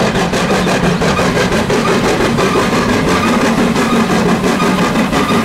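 Steam locomotive pulling a train of passenger coaches, its exhaust chuffing in quick, even beats over a steady running noise.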